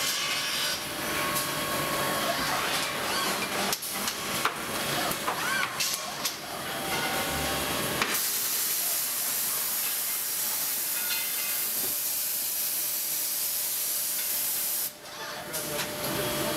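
Machinery noise from an automated bicycle-rim welding cell. It starts with mixed clanks and clicks, then turns into a steady hiss for about seven seconds that cuts off sharply near the end before the noise picks up again.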